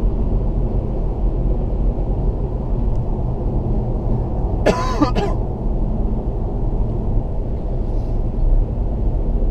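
Steady low road and engine rumble inside a Toyota Auris cruising at motorway speed. About halfway through, a brief burst of a person's voice cuts through for under a second.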